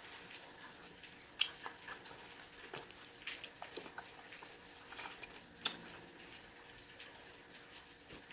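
Close-up eating sounds of oxtail soup: scattered wet lip smacks and sucking clicks as meat is sucked off the bone and fingers are licked, the loudest about a second and a half in and again past five seconds.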